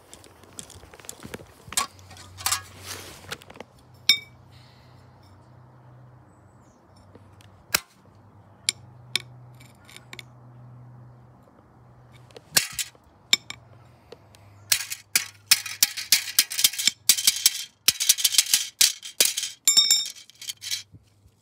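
Clear plastic DVD case being smashed and broken apart on concrete paving, with sharp plastic cracks and knocks. They are scattered at first, then come in a fast, loud run in the second half.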